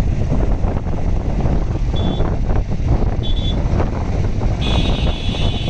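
Wind buffeting a helmet or body microphone on a moving motorcycle, with a steady low road and engine rumble underneath. Two short high beeps about two seconds and three seconds in, then a longer high tone near the end.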